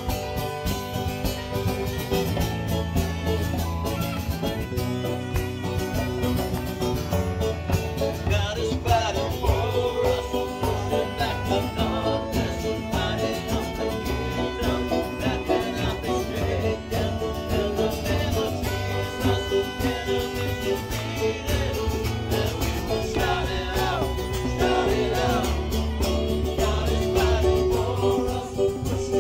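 Live gospel worship band playing a song with bass, guitar and drums, with voices singing over it in places.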